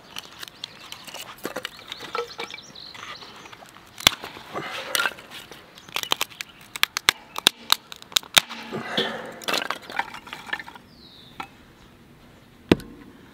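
Split firewood being broken into kindling, snapped by hand and split with a fixed-blade knife: a string of sharp cracks and wood splintering, then one sharp knock near the end.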